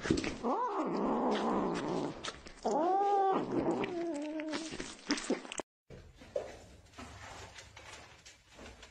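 Kittens eating raw minced meat give two drawn-out yowling growls that rise and fall in pitch, the first about half a second in and a longer one around three seconds in: typical of kittens guarding food. After about five and a half seconds the sound cuts to faint room noise.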